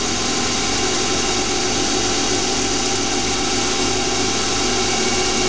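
Small CNC lathe running steadily with a Delrin part spinning in the chuck: an even hum with several steady whining tones and a hiss from the spindle drive and motor.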